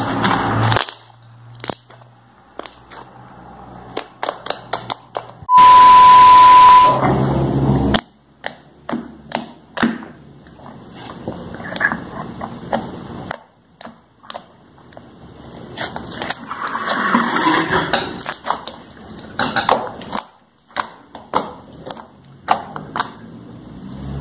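Hands squishing, stretching and kneading glossy slime, with sticky clicks and crackling pops coming in clusters. About six seconds in, a very loud burst of harsh noise with a steady beep through it lasts about a second and a half.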